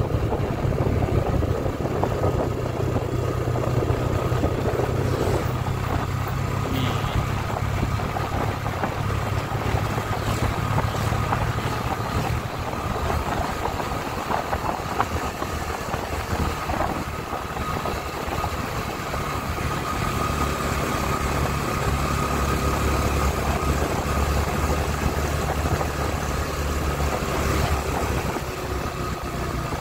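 Yamaha scooter's engine running steadily while being ridden, its note dropping lower for a stretch past the middle.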